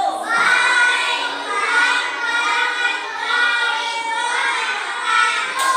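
A group of children singing together in unison, many young voices holding and bending notes.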